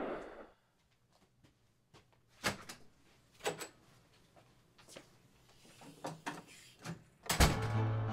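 The echo of a loud bang dies away, then a few scattered knocks and clunks follow. A loud sharp hit comes near the end.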